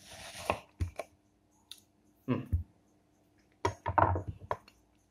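Kitchen knife cutting through a ripe mango's skin and flesh, a short scraping slice at first, then a few scattered clicks and knocks of the blade and fruit being handled.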